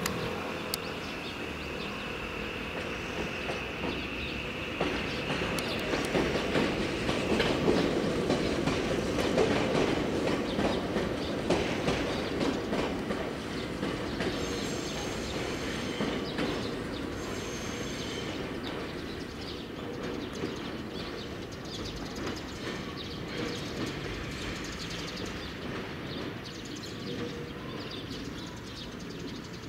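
Kobe Electric Railway 6500 series electric train moving slowly through the depot, its wheels clacking over rail joints. The rumble and clatter grow loudest about six to twelve seconds in, then ease off. A high steady whine sounds for the first few seconds.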